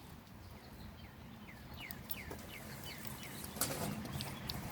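A bird singing a quick run of about six falling notes, followed by a brief rustle a little later.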